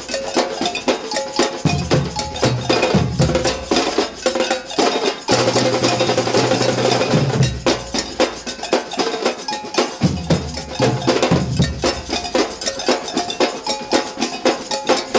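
Samba drumming band playing: rapid stick strokes on drums run throughout, while large bass drums pound repeating phrases that come in and drop out several times.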